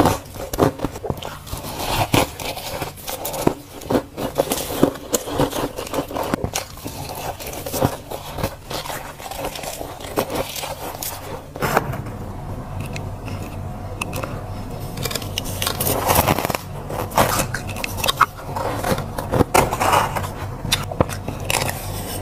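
Freezer frost being scraped off the frosted walls of a freezer with a spoon and crunched between the teeth, close to the microphone: a dense run of crisp scrapes and crunchy bites. After about twelve seconds a steady low hum runs beneath them.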